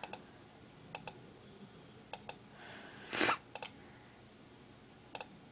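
Computer mouse clicking about once a second, each click a close double tick, as points of a lasso selection are placed in GIMP. A brief, louder rushing noise comes about three seconds in.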